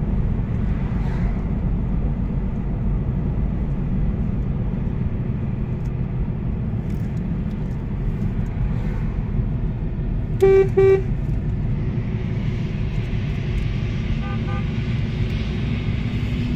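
Steady car road noise heard from inside the cabin, broken about ten and a half seconds in by two short, loud toots of the car horn, a honk of support for strikers. A fainter double beep follows a few seconds later.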